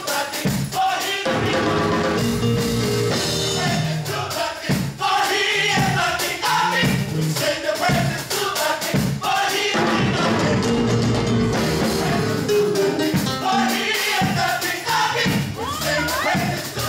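Gospel mass choir singing together in harmony over instrumental accompaniment.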